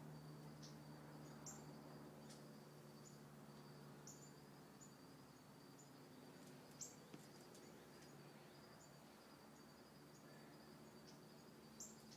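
Near silence with faint insect chirping: a thin high trill that pulses at a steady, even rhythm, over a low steady hum.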